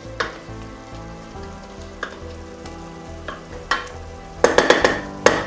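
Minced pork browning and sizzling in a stainless steel pot while a wooden spatula stirs it, knocking and scraping against the pot every second or so, with a quick run of knocks near the end.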